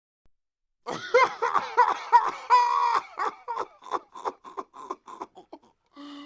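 Laughter: after a second of dead silence, a voice laughs in a string of short bursts that tail off toward the end.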